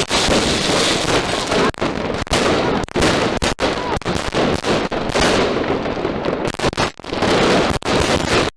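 Heron Fireworks Hell Fighter 144-shot 25 mm compound cake firing: a dense, continuous barrage of shots and bursts with only brief gaps.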